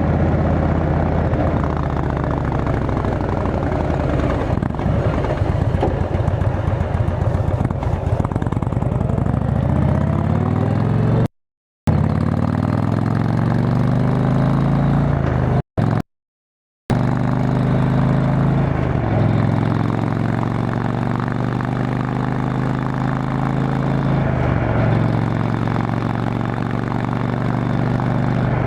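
Indian Chieftain Dark Horse V-twin running through an aftermarket Freedom Performance exhaust while riding, its leaking exhaust gasket newly replaced. The engine pitch rises as it accelerates and drops back with gear changes, then settles to a steady cruise; the sound cuts out completely twice, briefly, near the middle.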